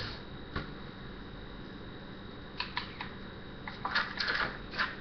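Handling noises of a plastic bottle: a few sharp clicks, then a cluster of short rustling, sputtering bursts about four seconds in as the bottle is put to the mouth.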